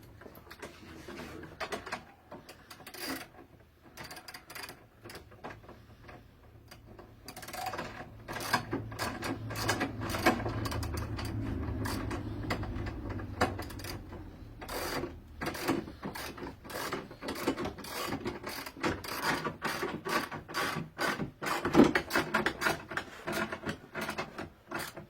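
Metal bolts being tightened and metal bed-frame parts handled, giving a long run of rapid clicks, rattles and knocks. A denser, louder stretch with a low hum comes about a third of the way in.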